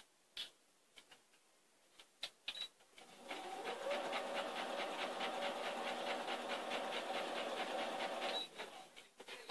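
An electric sewing machine runs for about five seconds, stitching in a fast, even rhythm over a steady motor hum, then stops. A few light clicks come before it starts.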